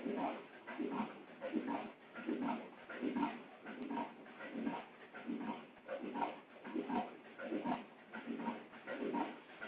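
Wire mesh welding machine running in its repeating cycle, one pulse about every three-quarters of a second.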